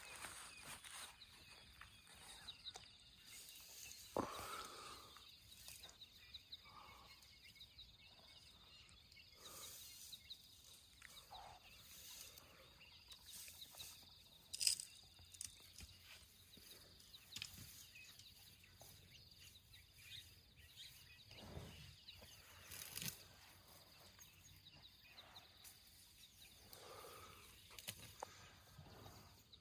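Faint rustling, tearing and crunching of grass as a young elephant pulls it up with its trunk and chews it, with scattered soft snaps and clicks. A sharper click stands out about halfway through.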